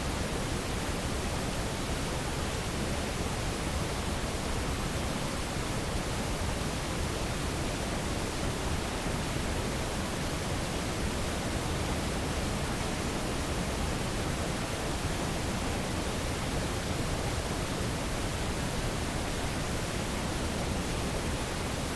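Steady, even hiss of a night-time field recording with its gain turned up, with no distinct knocks, footsteps or calls.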